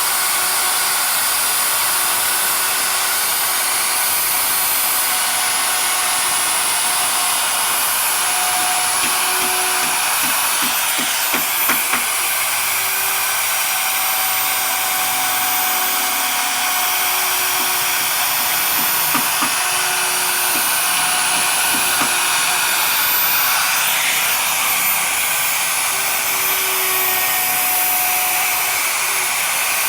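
A power tool's motor runs steadily, a hiss-like whir with a few faint steady tones. It is broken by a short run of knocks about eleven seconds in and a few lighter ones later.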